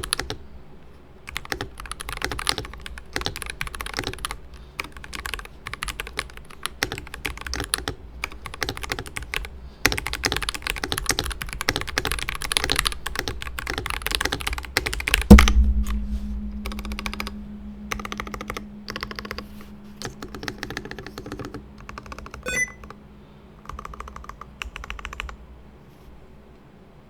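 Typing on a Varmilo Chang'e mechanical keyboard with stock Prestige Red switches: bursts of key presses with short pauses, sparser in the second half. Midway there is one loud thump, followed by a steady low hum for several seconds.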